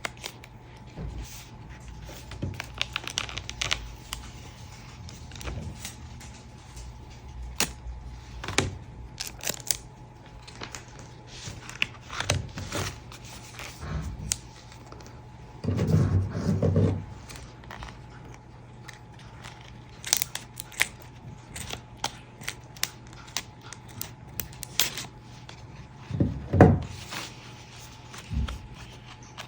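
A taped package being opened by hand: tape tearing and packaging crinkling, with scattered clicks and rustles, a couple of louder thumps about halfway through and again near the end, over a faint steady hum.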